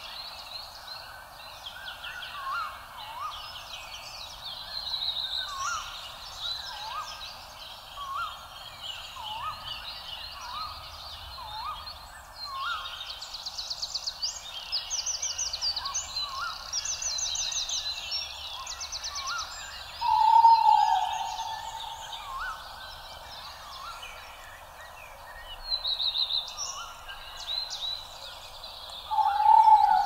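Many birds calling together: repeated short rising calls, with chirps and fast trills above them. A louder drawn-out call that falls in pitch comes about two-thirds of the way through and again at the end.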